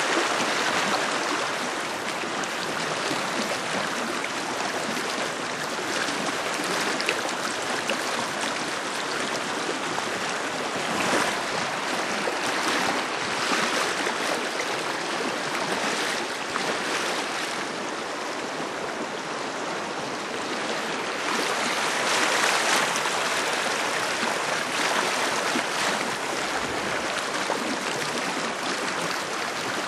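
Shallow river water rushing over a rocky riffle around an inflatable raft: a steady rush of moving water, swelling a little now and then.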